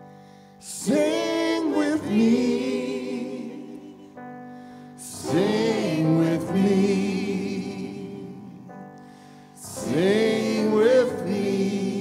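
Music: a wordless sung vocal line over held chords, in three long phrases about four and a half seconds apart.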